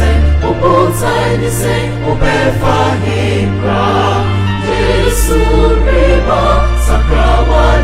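Gospel music: a choir singing over deep bass notes that are held and change every second or two.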